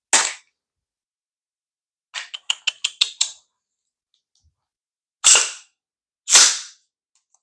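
Handling noise from an AR-style carbine: a single click, then a quick run of small metallic clicks, then two sharp, loud clacks about a second apart.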